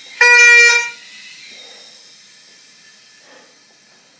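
A bagpipe chanter sounding one short, loud, reedy note of about half a second just after the start, then only faint room sound.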